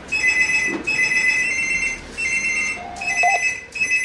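Electronic office desk telephone ringing: a high two-tone trill repeating in bursts under a second long, with only brief gaps between them.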